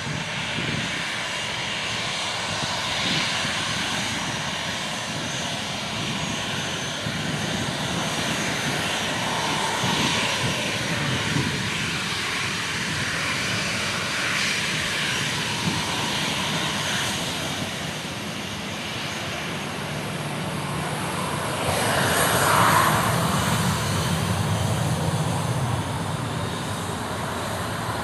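Jet airliner engines running: a steady noise with a faint high whine, swelling louder about 22 seconds in.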